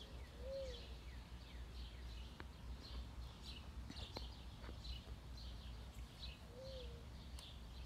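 Mourning dove cooing: two soft, low coos about six seconds apart, each rising and then falling in pitch. Small birds chirp steadily higher up throughout.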